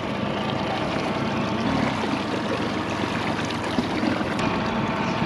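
A motorboat under way: a steady engine drone with water rushing past the hull.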